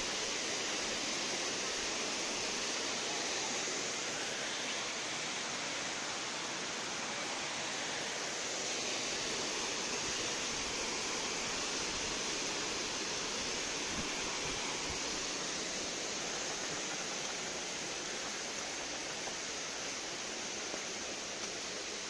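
Steady rush of flowing and falling water from the waterfalls and stream: an even hiss without breaks or changes.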